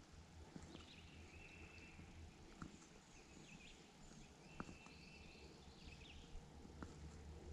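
Near silence with faint outdoor background. A faint high steady tone sounds twice, each time for about a second and a half, and there are a few light clicks.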